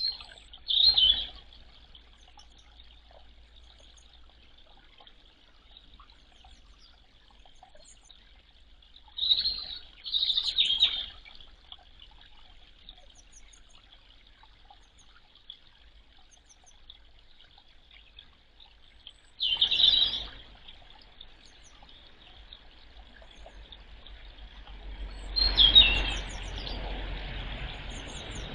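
Grey wagtail calls: four short bouts of sharp, high calls spaced several seconds apart, over a faint steady hiss. The background noise grows louder near the end.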